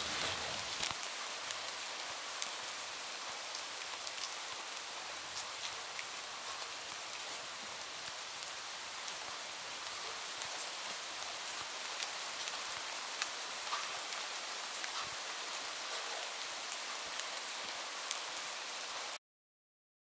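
Steady rain falling, an even hiss with individual drops ticking close by. It cuts off suddenly near the end.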